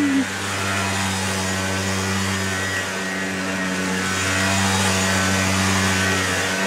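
Small 49cc Aeon quad's engine running steadily at a constant pitch as the kids' ATV circles, getting a little louder about halfway through.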